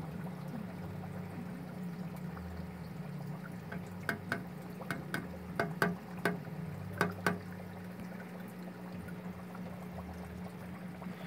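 Aquarium water trickling over a steady low electric hum from the tank equipment. A run of light clicks comes about four to seven seconds in.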